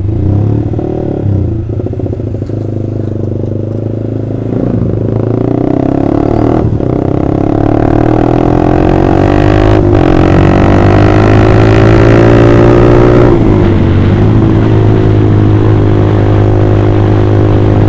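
Honda CBR150R's single-cylinder four-stroke engine running through an Austin Racing aftermarket racing exhaust while riding under acceleration. The pitch climbs steadily for several seconds, drops sharply about thirteen seconds in as at an upshift, then holds steady.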